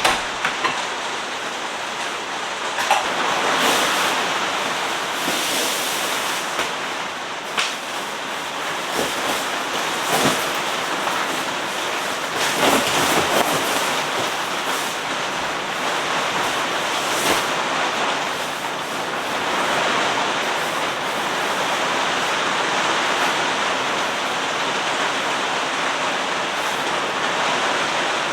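Heavy rain with wind: a steady rushing hiss, with scattered sharp clicks through it.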